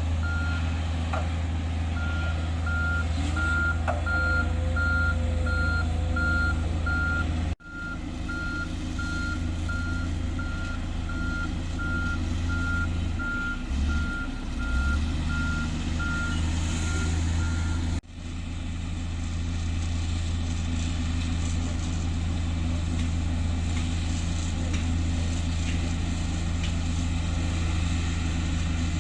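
Diesel engines of heavy earthmoving machines running steadily, with a reversing alarm beeping about twice a second through the first half and stopping a little past the middle. The sound drops out sharply twice, at video cuts.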